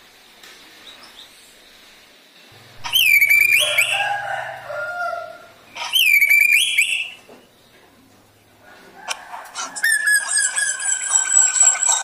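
A caged drongo (srigunting) singing. Loud whistled phrases with sweeping, slurred notes come about three seconds in and again about six seconds in, followed by a longer run of rapid, chattering notes over the last three seconds.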